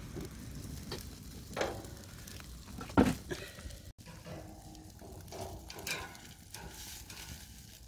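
Smoked herring sizzling over a charcoal fire on a metal grill grate, with scattered clicks and a sharp clack about three seconds in. In the second half, metal tongs tap against the grate.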